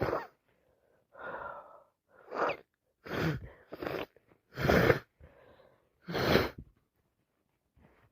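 A person with a cold sneezing repeatedly, several sneezes in quick succession with gasping, wheezy in-breaths between them; the loudest sneezes come right at the start, about five seconds in and about six seconds in.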